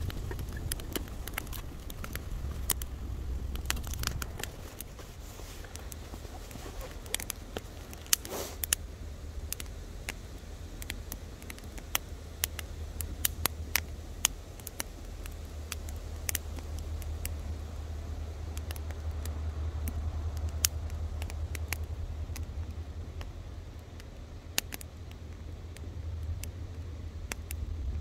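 Small campfire of sticks burning, crackling with frequent sharp pops over a low steady rumble.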